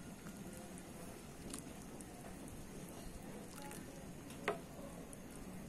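Pot of fish sinigang broth simmering: a faint, steady bubbling crackle with scattered small ticks, and one sharp click about four and a half seconds in.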